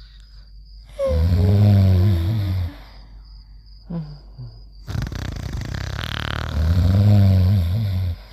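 Cartoon snoring: two long, loud snores, the first about a second in and the second from about halfway, each sliding down in pitch.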